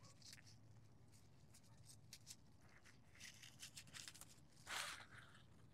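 Near silence, with faint rustling and snapping of Malabar spinach leaves being plucked by hand: a few small ticks about three to four seconds in and a brief rustle near the end.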